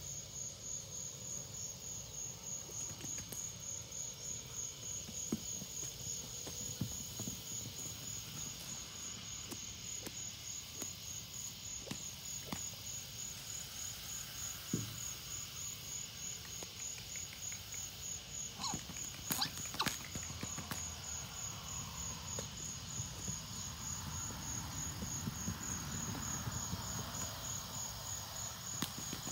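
Insects chirping in a steady, high, evenly pulsing chorus, with a few soft knocks about two-thirds of the way through.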